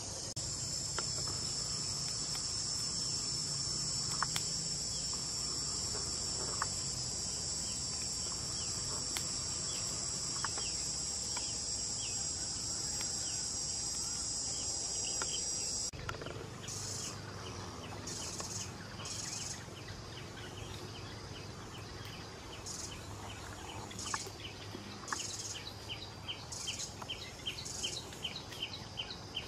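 Insects calling in a steady high-pitched drone that cuts off abruptly about halfway through. It gives way to high pulsing calls repeating roughly once a second over a run of quick, lower chirps.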